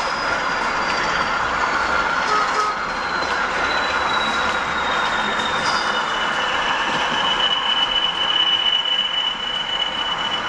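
High whine of a model locomotive's electric motor, falling slowly in pitch and then holding steady from about halfway through, over steady background noise.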